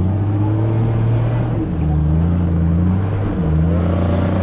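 Off-road 4x4's engine running steadily, its pitch dipping and rising as the throttle changes.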